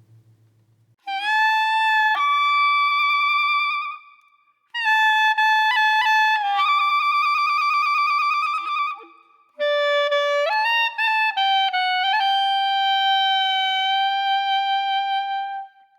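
Background music: a solo wind instrument playing slow, long-held notes in three phrases, with short pauses between them.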